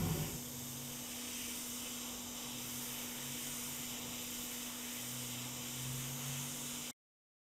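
Hot air rework station blowing a steady hiss of hot air, with a low hum beneath, as it heats the solder of a replacement charging port on a circuit board; it cuts off suddenly near the end.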